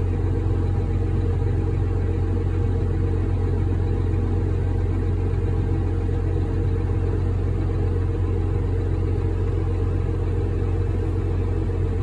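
New Holland T8030 tractor's diesel engine running steadily, heard from inside its cab as a constant low hum.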